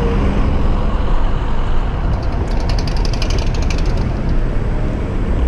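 Wind and road noise from riding a Bird electric scooter through street traffic. About two seconds in, a rapid rattling runs for a second and a half.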